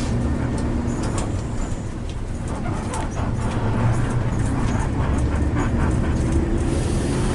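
Low, steady rumble of a bus engine running, with scattered light rattles and clicks.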